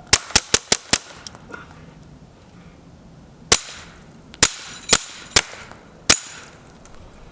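Suppressed Ruger Mark IV .22 pistol firing: a fast string of five shots in the first second, then five more shots spaced out over the next few seconds.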